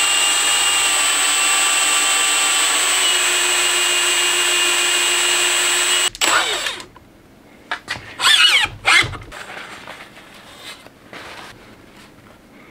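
Cordless Milwaukee drill running steadily at constant speed, turning a lapping tool against the face of an AR-15 upper receiver coated in 600-grit lapping compound. The drill cuts off abruptly about six seconds in. A few brief knocks and rubbing sounds follow as the parts are handled.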